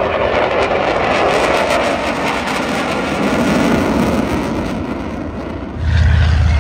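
Military jet flying past, a steady rush of jet engine noise with a faint falling whine. Just before the end it cuts to the deep, pulsing drone of a low-flying twin-engine propeller warplane.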